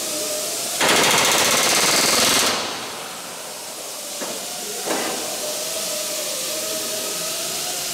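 Pneumatic rivet gun hammering a rivet into aluminium aircraft frame against a heavy tungsten bucking block: one rapid burst of about a second and a half, about a second in. A steady hiss of air carries on behind, with a couple of light knocks.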